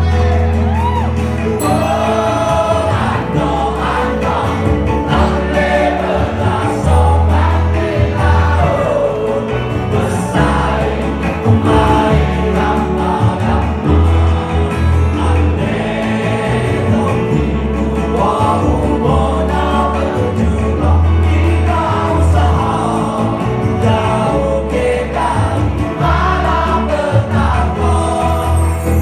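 Live band performance: a male lead singer with backing vocals joining in, over drums, percussion and a heavy, pulsing bass line.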